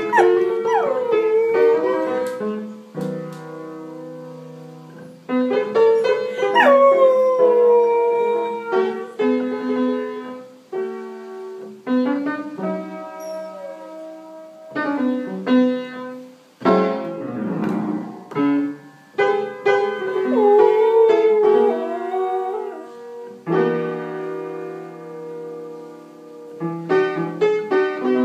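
Blues piano playing with a dog howling along. Several long howls slide down in pitch over the chords.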